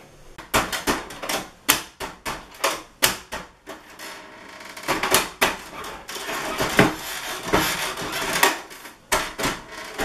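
Hand repeatedly banging and pressing on a portable CD radio boombox on a wooden shelf: a run of sharp knocks and clicks, about two to three a second, as he tries to make it turn on.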